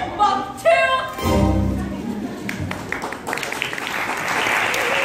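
A song in a stage musical ends with a few sung notes over the accompaniment and a final low note. About three seconds in, the audience breaks into applause.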